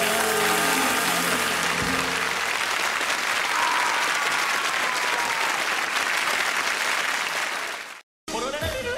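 Audience applause at the end of a live song recording, with the band's last notes fading in the first second or two. It cuts off abruptly about eight seconds in, and after a brief gap another song with singing begins.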